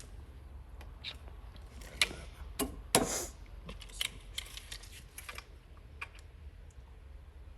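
Scattered light clicks and knocks of desk parts being handled and set in place on the desktop, with two sharper knocks about two and three seconds in, the second followed by a brief rustle.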